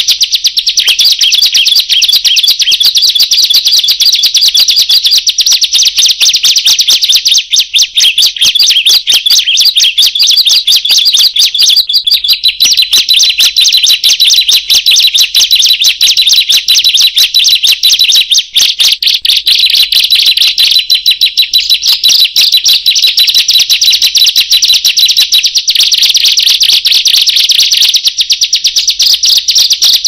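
Ciblek (prenjak), a prinia, singing: a loud, unbroken stream of rapid, high, sharp chirps and trills.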